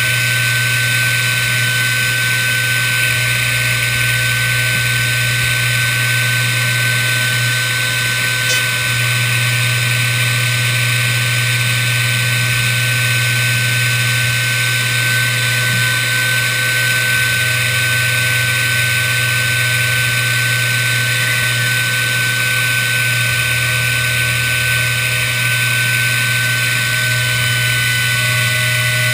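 CNC router spindle running steadily with a high, constant whine while its bit mills through a plastic sheet, over a steady hiss and a low hum.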